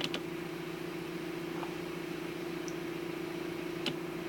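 Steady electrical hum with a low hiss, broken only by a few faint clicks near the start and again about four seconds in.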